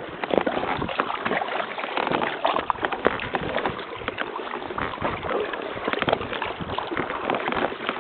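Water splashing and sloshing around a Gumotex Twist 2 inflatable kayak as it is paddled, with many small close splashes and knocks.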